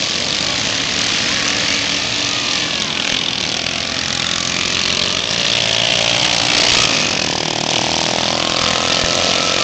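Several racing lawn mower engines running hard around a dirt track, blended together and swelling louder about two-thirds of the way through.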